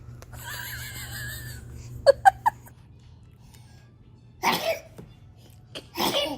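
A baby sneezing twice, about a second and a half apart, in the second half. Around two seconds in there are three short, very loud voice sounds, and before them a high, wavering voice-like sound.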